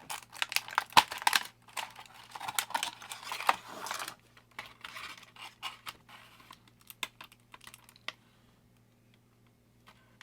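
A plastic pack of small replacement diecast wheels being opened and handled: plastic crinkling and rapid clicking of the little parts. It thins to scattered clicks after about four seconds and dies away near the end.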